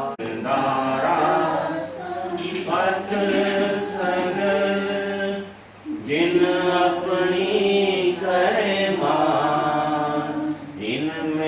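A group of voices singing a Hindu devotional bhajan chant in unison, holding long notes, with a short break about six seconds in.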